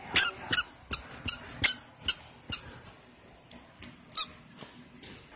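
Squeaky toy squeaking again and again in short high squeaks, a quick run of them over the first couple of seconds, then three more spaced out before it stops.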